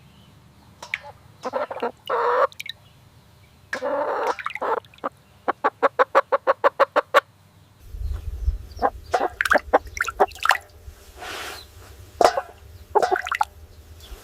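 Chickens clucking: a few drawn-out calls, then a quick, even run of about seven clucks a second. After an apparent cut, more short clucks follow.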